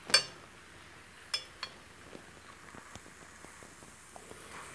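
Metal spatula clinking against a cast iron skillet: one sharp, ringing clink at the start, two lighter clinks about a second and a half in, then a few faint taps.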